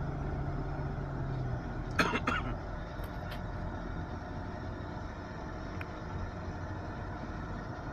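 Inside a moving car: steady engine and road hum, with a low steady tone that drops away about a second and a half in. About two seconds in comes a short, sharp double clatter, the loudest sound, followed by a few faint ticks.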